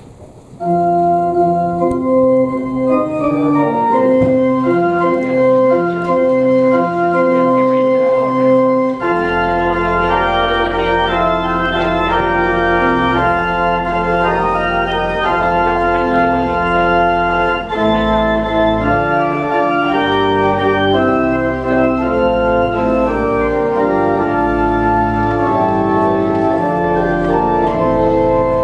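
Church organ playing a piece of sustained chords in a stepwise melody. A deep pedal bass comes in about nine seconds in.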